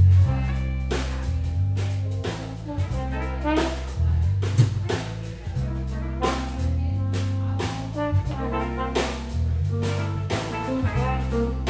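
Live band playing a blues jam: a drum kit keeps a steady beat with cymbal hits under a walking bass line, with guitars and a held lead line on top.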